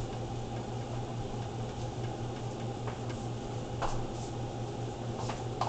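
Steady low hum with a faint hiss of background room tone, and a few faint clicks.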